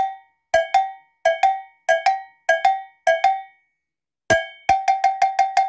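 A struck clapperless metal bell, cowbell-like, played in a rhythm. First comes a single stroke, then five pairs of two notes, each pair low then slightly higher, about one pair every two-thirds of a second. After a pause come a single stroke and then a quick even run of strokes, about six a second.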